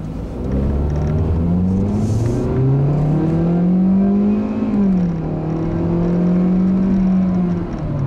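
The Hyundai Accent's 1.6-litre direct-injection four-cylinder accelerating from a pull-away, heard from inside the cabin. The engine note rises, drops as the six-speed automatic upshifts about two seconds in, rises again, and drops with another upshift about five seconds in. It then holds steady at a light cruise.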